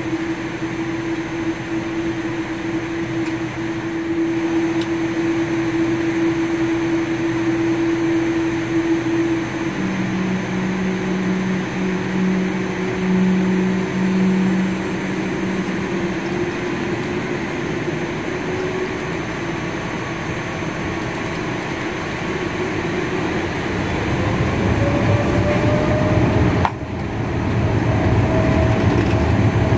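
Jet airliner cabin noise during taxi: a steady engine and ventilation hum. About 24 seconds in, the engines spool up for the takeoff roll with a rising whine, and the noise grows louder, with a brief dip near the end.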